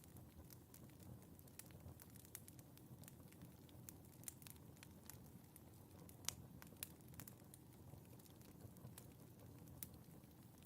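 Wood fire in a fireplace crackling quietly: a steady scatter of small, sharp pops over a soft low rumble, with one louder pop about six seconds in.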